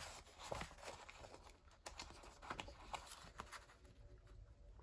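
Faint rustling of paper planner pages and sticker backing being handled, with a few light scattered taps and clicks.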